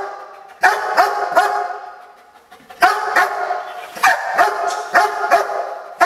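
Police German Shepherd barking repeatedly in quick clusters of two or three sharp barks, with a short pause about two seconds in, echoing off the hard walls of the corridor.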